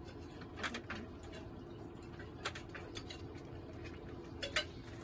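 Cat eating treats from a hand: faint scattered clicks of chewing and crunching over a low steady hum.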